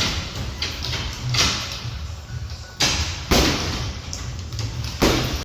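Hard boxing punches striking a padded target, a series of loud thuds landing at uneven intervals of about one to one and a half seconds, with faint music underneath.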